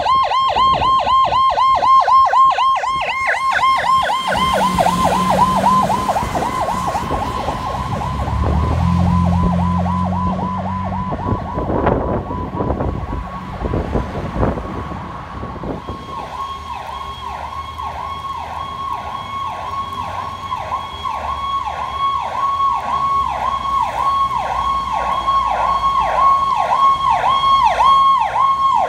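Emergency-vehicle electronic sirens in fast yelp. The first is close and fades away within a few seconds. Two deep, low steady blasts and traffic noise follow. From about halfway through, another yelping siren comes in and grows louder toward the end.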